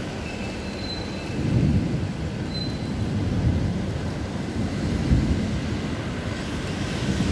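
Low, uneven rumbling of stormy weather, swelling about a second and a half in, with a few faint short high tones in the first three seconds.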